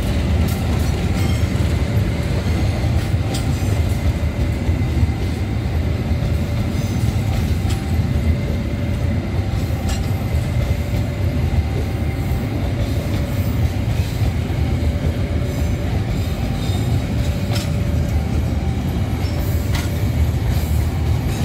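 KAI economy-class passenger coaches rolling past close by: a steady low rumble of steel wheels on the rails, with sharp clacks now and then as the wheels cross rail joints and a faint high wheel squeal.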